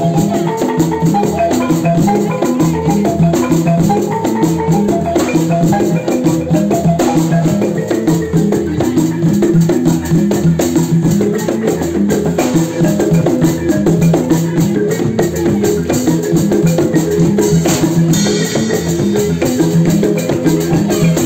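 Live band playing: drum kit and hand percussion under a repeating melodic figure, loud and continuous.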